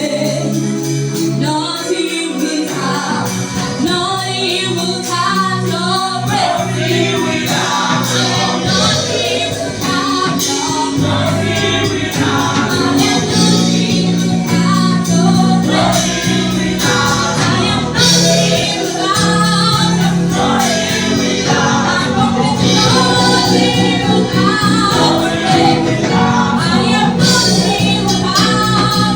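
Gospel choir singing a worship song over instrumental backing with a steady beat. A fuller bass comes in about eleven seconds in.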